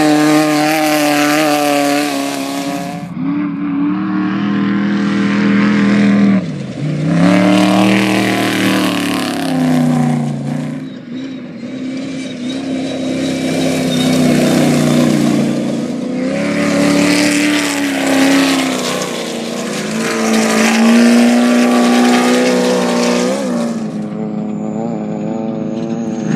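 Off-road race vehicle engines revving hard, the pitch repeatedly climbing and dropping as they work through the gears, with several loud swells.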